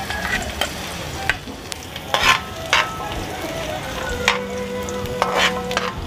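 Minced garlic sizzling in hot cooking oil in a metal wok while a metal ladle stirs it, scraping and knocking against the wok several times. This is the first stage of a sauté (gisa), the garlic just added to the oil.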